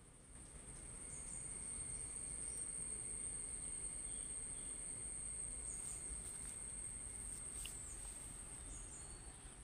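A steady, high-pitched insect trill, with a few faint short chirps and clicks over it.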